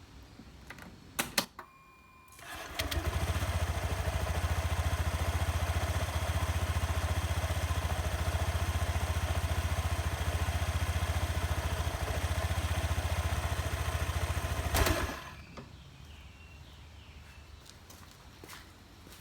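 A couple of clicks, then a Honda PCX125 scooter's single-cylinder engine starts about three seconds in and idles steadily after its oil change. It is switched off near the end, and the running stops abruptly.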